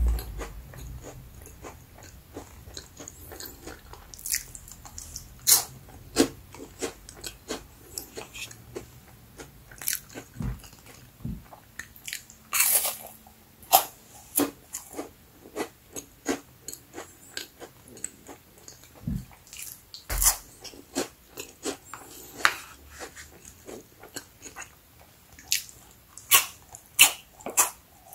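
Chocolate-coated crispy crackers being bitten and chewed close to the microphone: a run of irregular sharp crunches, some much louder than others.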